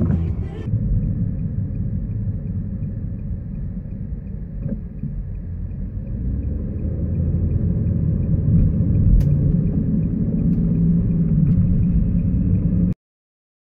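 Low rumble of a car's engine and tyres heard from inside the cabin, growing louder as the car pulls away and gathers speed, then cutting off suddenly near the end.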